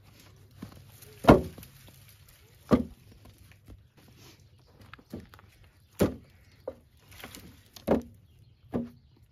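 Cut firewood logs knocking into a wheelbarrow as they are loaded one at a time: about seven thuds at uneven intervals, the first about a second in the loudest.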